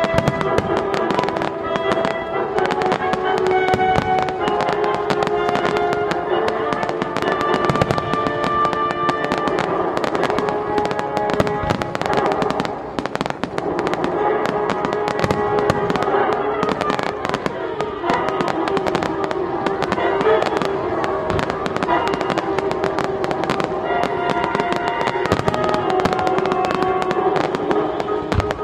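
Fireworks going off in rapid, continuous succession: a dense run of bangs and crackling from aerial shells and low bursts. Music plays alongside throughout.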